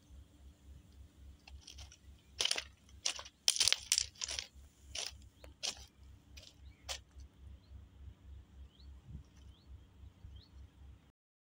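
Footsteps crunching on gravel track ballast, a run of uneven steps through the middle, with a few faint bird chirps near the end before the sound cuts off.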